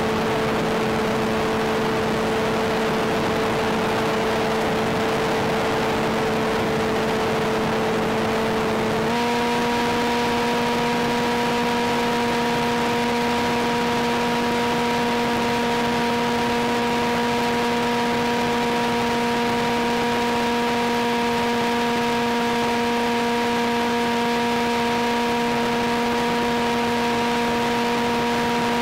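Brushless electric motor and pusher propeller of an RC glider running steadily, a hum with a hiss over it. About nine seconds in, the pitch steps up slightly as the throttle is raised.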